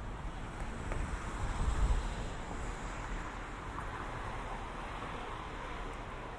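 City street noise: a steady wash of traffic with wind buffeting the microphone, and a low rumble that swells about two seconds in.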